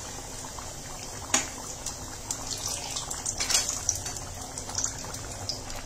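Thick kala chana (black chickpea) gravy boiling hard in a kadai as it thickens, its bubbles popping and plopping. There is one sharp pop about a second and a half in and a flurry of pops around three and a half seconds.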